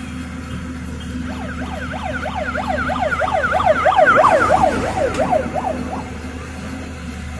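A siren wailing rapidly up and down, about three sweeps a second, swelling to a peak and fading away as it passes, over the steady hum of a running diesel engine.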